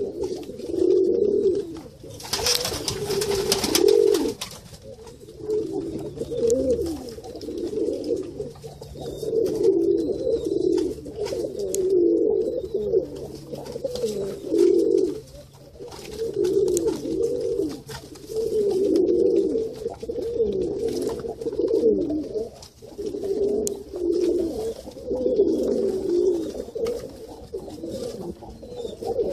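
Several Iranian high flyer pigeons cooing, with repeated warbling coos overlapping one another. A brief burst of noise comes about two seconds in.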